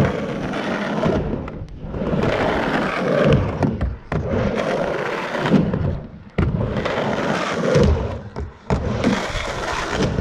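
Skateboard wheels rolling back and forth across a mini ramp, the rumble swelling and fading with each pass about every two to three seconds, with a few thuds of the board landing.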